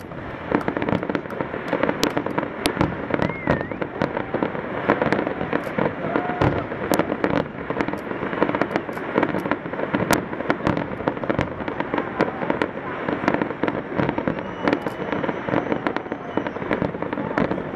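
Fireworks display: a sustained barrage of aerial shell bursts, with many sharp bangs following one another with no pause.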